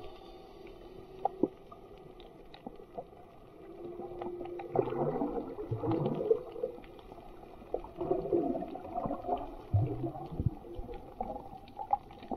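Underwater recording: irregular bubbling and gurgling of water, in bursts that swell about five seconds in and again around eight to ten seconds, with scattered short clicks.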